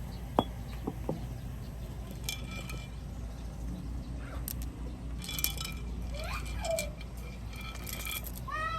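Metal parts clinking, several short strikes that ring briefly, with a few sharper clicks before them. A cat meows near the end.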